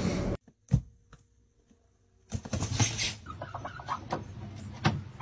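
A steady noise cuts off, followed by a single thump and a quiet spell. Then a chicken clucks, a quick run of short clucks about three and a half seconds in, among scattered knocks and scuffs.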